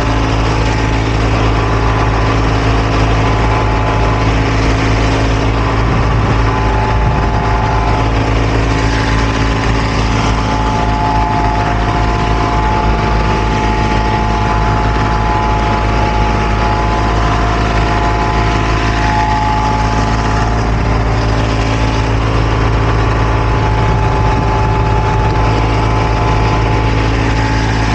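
Heavy engine of asphalt-paving machinery running steadily under load, a loud constant drone with a steady higher whine over it.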